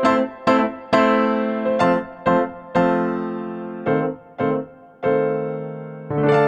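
Background music: a piano playing separate struck notes, each ringing and dying away, about two notes a second, with a longer note held near the end.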